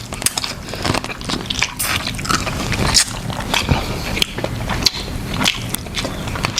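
Close-up eating sounds of a seafood meal: biting and chewing, a quick irregular run of sharp wet clicks.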